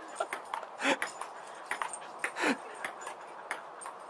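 A dog giving two short falling whimpering yips, about one and two and a half seconds in, among scattered light clicks and taps.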